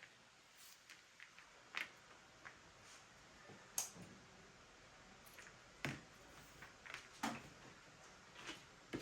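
Scattered light clicks and taps of small objects being handled, about a dozen over a faint room hum, the sharpest about 4 and 7 seconds in.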